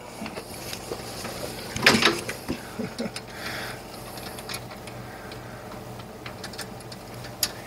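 Metal hand tool clicking and clinking on the bolts of a Brunswick A2 pinsetter's restricted drop bracket as they are undone; the bolts were loose. A louder clatter of clicks comes about two seconds in, with scattered single ticks after it, over a steady low machine hum.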